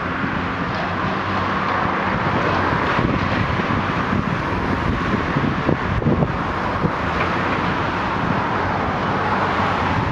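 A high-reach demolition excavator's diesel engine running steadily under wind on the microphone, with a few short knocks.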